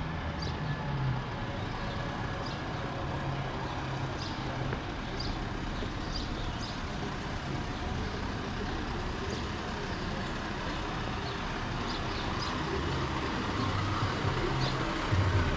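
City street traffic: a steady wash of road noise, with a low engine hum near the start and again near the end, and short high chirps here and there.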